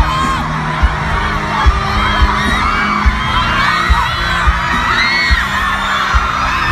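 A crowd cheering and screaming over music with a slow, heavy bass beat.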